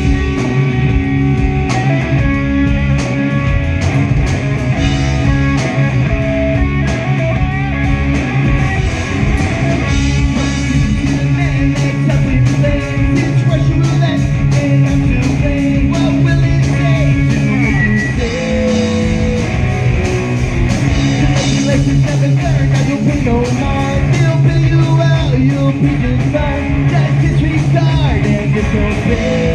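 Live rock band playing a song, with guitars to the fore and a steady beat.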